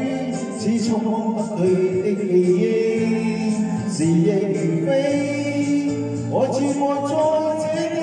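Music: a slow song with a male voice singing a sustained melody over accompaniment, the notes held and scooping up into new phrases.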